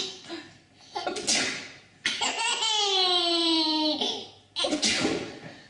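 A baby laughing: a long squealing laugh that falls slightly in pitch about two seconds in, with short breathy bursts of laughter before and after it.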